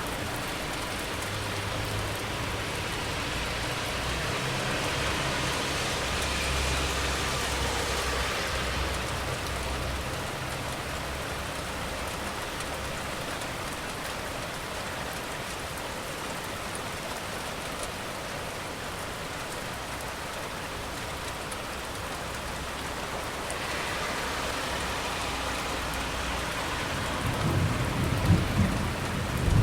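Steady rain falling, with thunder rolling low in the background over the first ten seconds or so. Twice, once about five seconds in and again past twenty seconds, a hiss swells and fades, like a car passing on a wet road. Near the end, louder, uneven thunder builds up.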